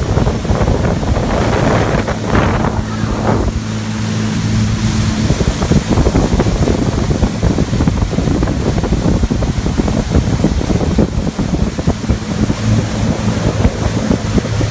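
Motor cruiser under way, its Yanmar 6LPA six-cylinder turbo-diesel running with a steady low hum beneath heavy wind on the microphone and water rushing along the hull.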